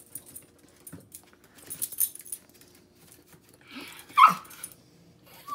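Yorkshire terrier giving one short, sharp bark about four seconds in, dropping in pitch, with a light scratchy rattling as it jumps about before it and a brief small yip at the end.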